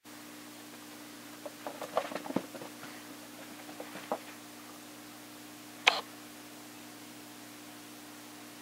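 Two cats scuffling and chasing on carpet: a scatter of soft paw thumps and scuffs, mostly in the second and third seconds with a few more around four seconds in, and a single sharp click about six seconds in, over a steady low hum.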